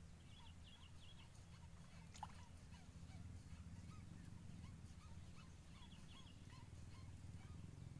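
Near silence: faint outdoor ambience with a steady low rumble and faint, short, repeated bird-like chirps, plus a single faint click about two seconds in.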